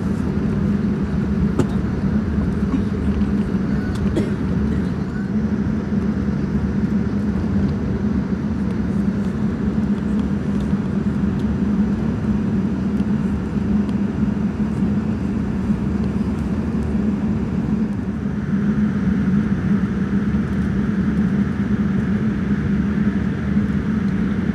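Steady cabin noise of a Boeing 787-9 taxiing: a constant low hum and rumble from the engines at low thrust and the airflow in the cabin. A fainter, higher hiss joins about three-quarters of the way through.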